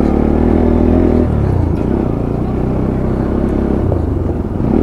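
Motorcycle engine running at low speed on a rough dirt track. The note is steady for about a second, then drops as the throttle eases, and settles into a steady run.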